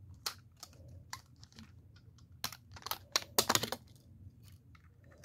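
Irregular light clicks and rustles of hands handling a plastic toy engine while pulling off a rubber band and a plastic retainer from its base. A denser, louder run of clicks and scrapes comes about two and a half to four seconds in.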